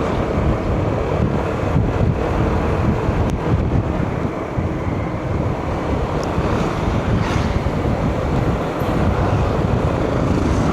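Steady wind buffeting the microphone over the running engine and road noise of a moving vehicle on the ride.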